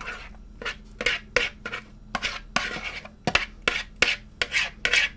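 Kitchen utensil scraping and knocking against a pot, scooping a thick, creamy chicken and noodle mixture out into a casserole dish, in short irregular strokes about three a second.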